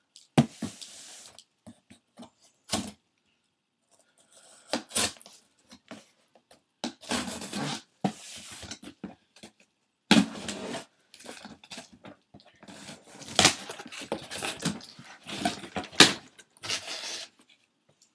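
A cardboard shipping box being opened by hand: tape and cardboard tearing, flaps scraping and rustling, broken by several sharp knocks as the box is handled.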